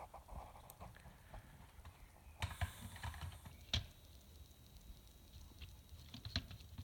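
Faint scattered clicks and light knocks of a plastic LEGO Technic model being handled, with a short rustle about two and a half seconds in and a sharp click a second later.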